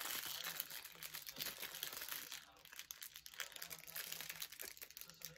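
Packaging crinkling and rustling while parts are handled during unboxing: a steady run of irregular small crackles and ticks.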